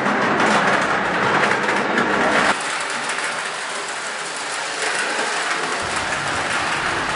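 Lionel O-gauge toy train rolling on its FasTrack rails, a steady rumbling clatter of wheels on track. The sound changes abruptly about two and a half seconds in, losing its low rumble, and a similar steady noise runs on after that.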